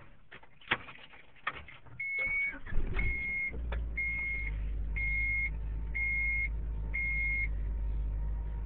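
A few clicks, then the 1993 Honda Accord's F22A6 2.2-litre four-cylinder is cranked briefly on a cold start, catches and settles into a steady idle. Over the start, a dashboard warning beeper sounds six times, about once a second.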